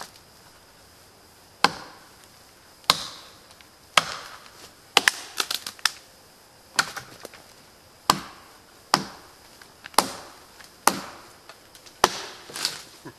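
A Bark River JBA (Jonburnaxe), a heavy convex-ground chopping knife, striking a dead pine log. The chops are sharp and come about one a second, with a quick run of smaller knocks about five seconds in.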